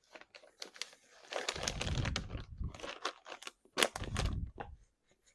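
Close-miked eating: irregular wet crunching and smacking of chewing, in two louder spells.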